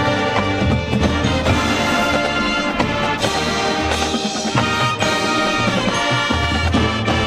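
High school marching band playing: brass chords held over drums and front-ensemble percussion.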